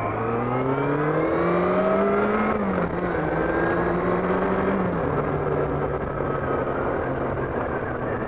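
Yamaha R6's inline-four engine pulling away with its pitch rising, a brief dip about two and a half seconds in as it shifts up, then holding steady before the pitch settles lower again about five seconds in. Heavy wind noise from the helmet-mounted mic runs under it.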